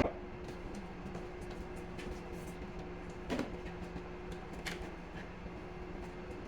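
Faint steady machine-like hum with a few scattered light clicks and knocks.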